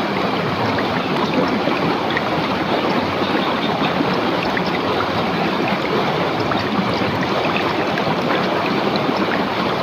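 A rocky river running steadily over stones: an even rush of water with small splashes and trickles scattered through it.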